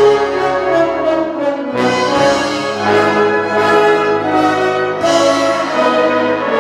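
Full orchestra of strings, woodwinds and brass playing held chords, with new chords struck about two seconds in and again about five seconds in.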